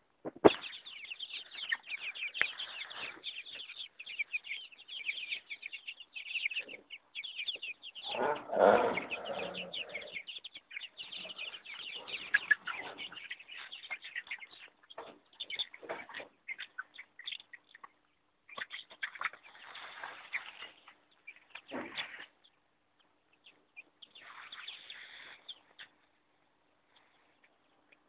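A flock of young chickens cheeping, many short high peeps overlapping almost without pause, thinning out to scattered bursts in the last few seconds. About eight seconds in there is a louder, fuller rustling burst lasting a couple of seconds.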